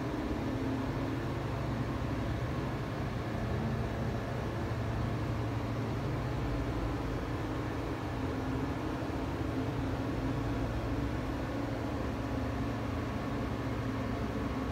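Steady low machine hum with a faint hiss that does not change.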